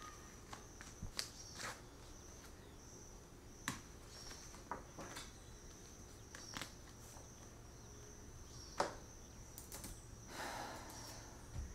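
Faint, steady, pulsing chirping of crickets, with scattered sharp clicks and knocks from a small case being handled on a table and laptop keys; the loudest knock comes about nine seconds in.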